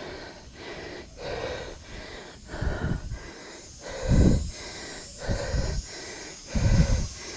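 A man breathing hard, winded from a steep uphill hike: rhythmic panting, about three breaths every two seconds, with some breaths gusting low against the microphone.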